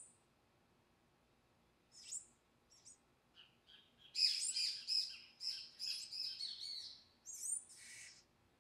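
Palm tanagers calling. A high squeaky call opens, another comes about two seconds in, then a few faint notes. From about four seconds in a fast run of squeaky, chattering notes lasts some three seconds, and it ends with a short burst as the adult feeds the begging fledgling.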